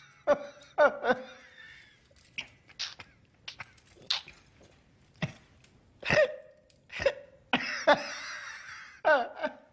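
A person's sneezes and coughs: about a dozen short, sharp bursts with gaps between them, and one longer hissing burst about eight seconds in.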